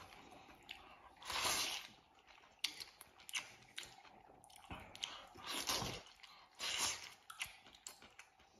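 A person eating hand-torn noodle soup with chopsticks: several short, loud slurps of noodles and broth between quieter chewing.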